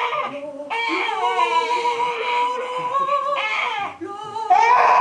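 A high-pitched voice wailing in long, wavering, drawn-out tones, like crying. It gets louder and more agitated about four and a half seconds in.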